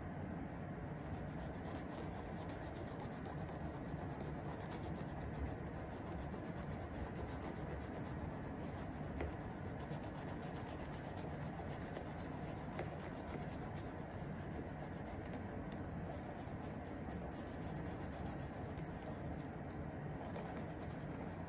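Cloth wrapped over the fingers rubbing the suede upper of a shoe, a steady soft scrubbing with no clear pauses, as the suede is cleaned.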